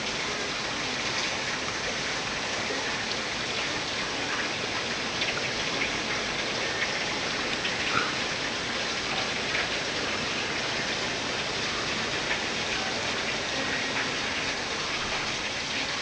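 Heavy rain pouring down steadily, with a continuous hiss and many small drop splashes and patters.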